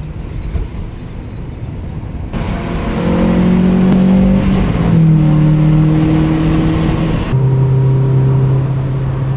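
Car engine and road noise heard from inside the cabin while driving on a freeway: a steady engine drone over the hum of tyres, its pitch dropping in steps about halfway through and again near the end.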